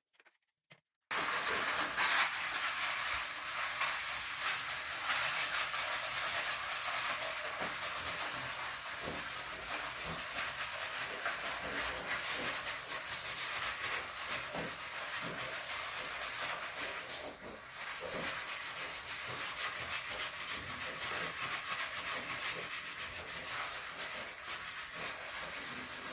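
Continuous rubbing noise, mostly a high, gritty hiss with fine irregular scratches, starting abruptly about a second in.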